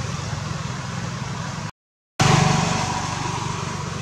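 Steady motor traffic hum with road noise, cut off by a half-second gap of silence near the middle, then coming back louder and slowly fading.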